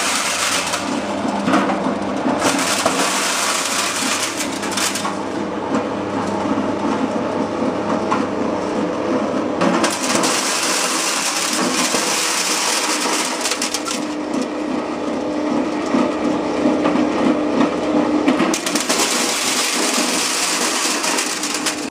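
Small corn sheller running and stripping kernels off the cobs, a continuous mechanical crushing noise. Its harsher upper part eases about ten seconds in and comes back near the end.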